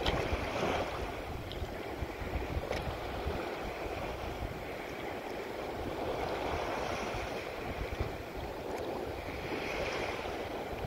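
Choppy water splashing and rushing past a moving boat, the wash swelling and fading every few seconds, with wind rumbling on the microphone.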